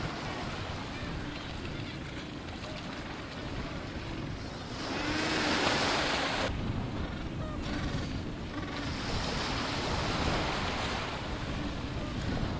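Small waves breaking and washing up a gravel beach, loudest about five seconds in and again about nine seconds in, over a steady low rumble of wind on the microphone.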